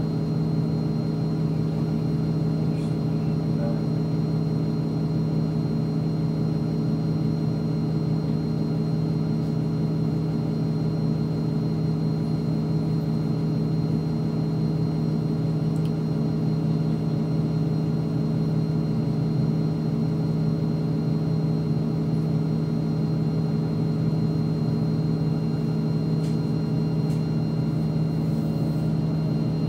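NefAZ-5299 city bus engine idling steadily with the bus standing still, a constant low hum heard from inside the passenger cabin.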